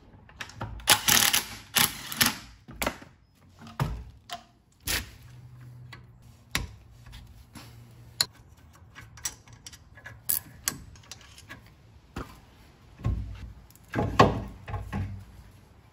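Short bursts of a cordless impact wrench on the wheel's lug bolts in the first few seconds, then scattered clicks and metal clinks of hand tools on the brake parts. Near the end, louder knocking and scraping of metal as the brake caliper is handled on the rotor.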